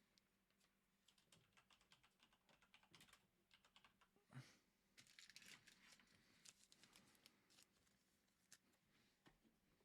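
Faint, quick clicks and light rustling of trading cards and their packaging being handled, with a brief louder rustle about four seconds in.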